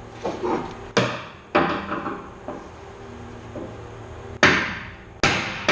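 Hammer blows on a steel pry tool wedged behind a rivet in the van's metal wall, driving it to pop the rivet out: four sharp metallic strikes, unevenly spaced, two about a second in and two near the end, each ringing briefly.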